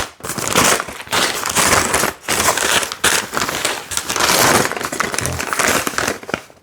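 Paper bags of Lego pieces crinkling and rustling as they are handled and sorted, in several bursts with short breaks.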